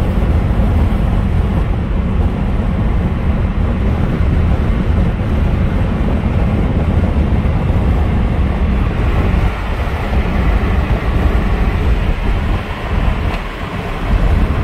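Steady road and wind noise of a car driving at highway speed, heard inside the cabin: a loud, even noise strongest in the low end, easing briefly near the end.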